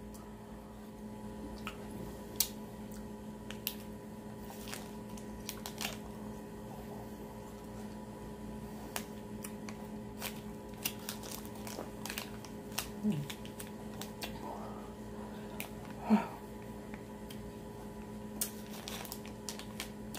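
Small scattered clicks, crinkles and wet mouth sounds as a plastic-sleeved freezer pop is squeezed and sucked, over a steady low hum. Two brief vocal murmurs about two-thirds of the way through.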